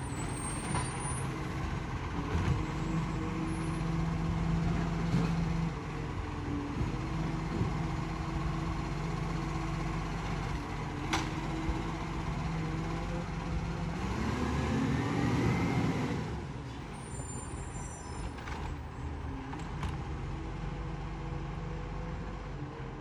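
Diesel garbage truck's engine running steadily as the truck moves slowly along. About two-thirds of the way in, the engine note rises for a couple of seconds, then drops back.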